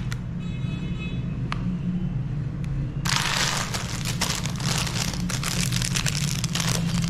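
Electric meat grinder motor running with a steady hum; about three seconds in, loud crunching and crackling starts as chocolate is pushed through and ground.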